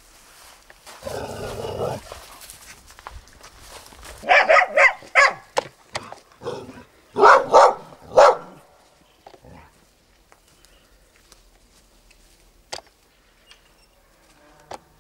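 Dog barking in two short bursts, several sharp barks each, about four and eight seconds in. A brief rushing noise comes before them.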